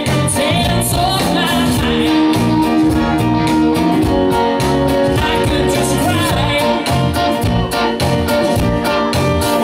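A live band playing: electric guitars, bass guitar, keyboard and drum kit, with a steady beat and sustained held notes.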